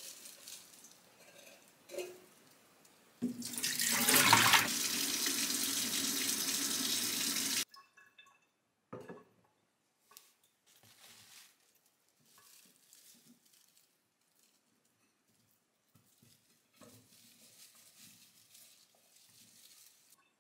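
Kitchen tap running into a stainless steel sink for about four seconds, starting and stopping abruptly. Afterwards only faint scattered knocks and rustles of glass and plant stems being handled.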